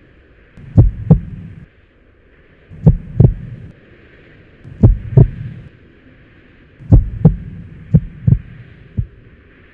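Heartbeat sound effect: paired lub-dub thumps about every two seconds, coming faster near the end, over a faint hiss.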